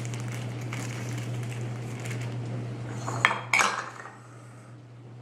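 A plastic zipper bag of liquid ice cream mixture being handled and pressed shut to push the air out, with two sharp clinks about three seconds in. A steady low hum runs underneath and stops just after the clinks.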